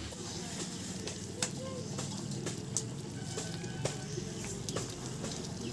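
Meat curry simmering in a metal pan over a wood fire as a metal ladle stirs it, a steady bubbling hiss with scattered sharp clicks of the ladle against the pan and the fire crackling. The rice flour thickening the curry gives this stage of the cooking.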